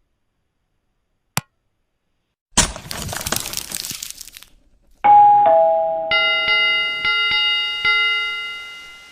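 Subscribe-animation sound effects: a single click, then a noisy swish lasting about two seconds, then a two-note falling ding-dong chime followed by a bell ringing in several quick repeated strikes that fade away.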